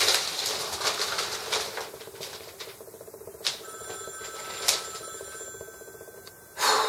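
A telephone ringing with a steady trill, over the rustle of newspaper pages being shaken and turned in the first few seconds.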